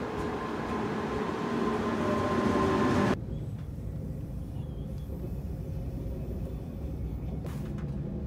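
Train running, heard from inside the carriage: a rumble with a steady whine that grows louder for about three seconds. It then cuts abruptly to a quieter, lower rumble.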